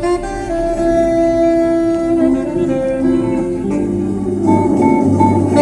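Music with plucked guitar, played loud through a car audio system of six Sundown SA-15 subwoofers and McLaren midbass speakers during a sound demo.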